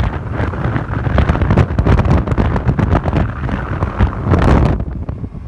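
Wind buffeting the microphone of a camera carried on a moving two-wheeler: a loud, gusty low rumble with crackle. It falls away sharply near the end.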